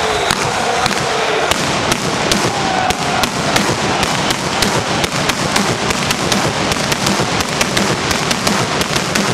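Fireworks crackling and popping in rapid, irregular cracks, which grow denser after about three seconds.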